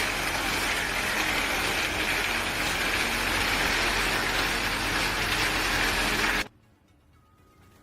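A steady mechanical running noise that cuts off suddenly about six and a half seconds in.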